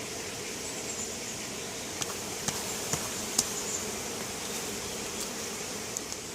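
Honey bees buzzing in a steady hum around an open hive, with a few sharp clicks, most of them between about two and three and a half seconds in.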